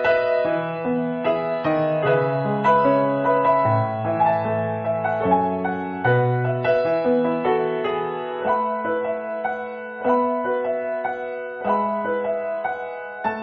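Background piano music: a melody of held notes over a moving bass line.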